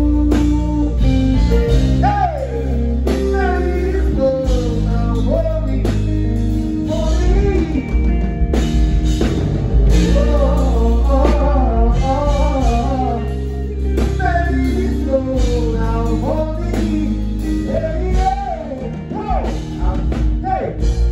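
Live band music, with guitar, bass and drums, under a voice singing melodic runs without clear words.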